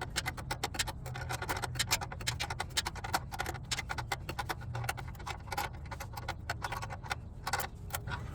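Ratcheting wrench clicking in rapid runs as it tightens a heat-shield nut under the car.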